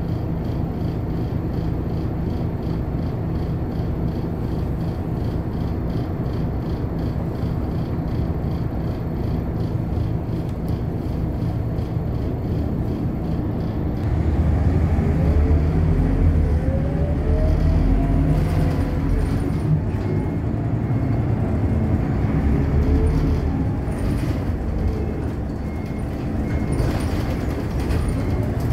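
City bus running, heard from inside the passenger cabin: steady engine and road noise. About halfway through it grows louder, and a whine rises in pitch twice as the bus accelerates.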